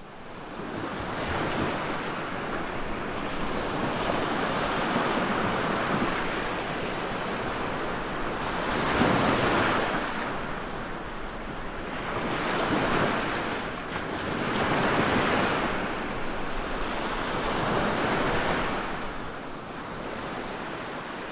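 Ocean surf washing in: a steady hiss of waves that swells and ebbs every three to four seconds.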